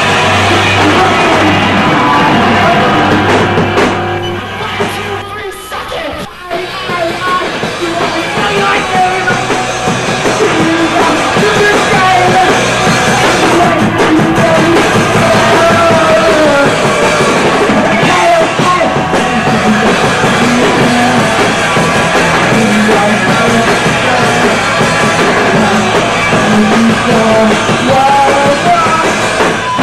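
Punk rock band playing live: electric guitar, bass and drum kit, with a singer shouting into a microphone. The music drops back briefly about five seconds in, then comes back at full level.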